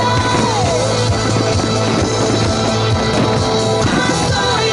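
Loud pop music with singing over a PA system, driven by a steady bass and beat; a held note slides down in pitch about half a second in.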